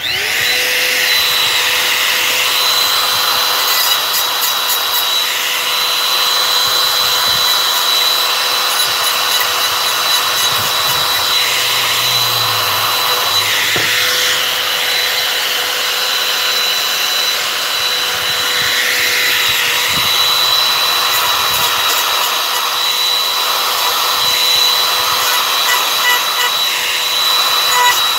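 Compact palm router starting up, its motor whine rising briefly and then holding at one steady pitch, while the bit cuts into a wooden cutout with a continuous rough grinding.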